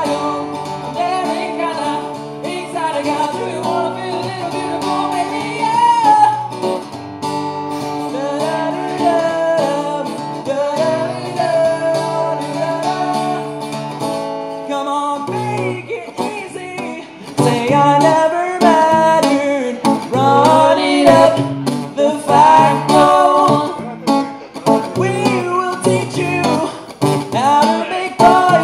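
Live guitar-and-vocal music: a guitar playing chords under a singing voice, getting louder a little over halfway through.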